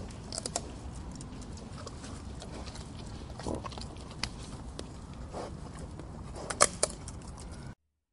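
A deer browsing on shrubs: scattered crisp snaps and clicks of leaves and twigs being pulled and chewed, the loudest cluster near the end, over a steady low rumble. The sound cuts off abruptly shortly before the end.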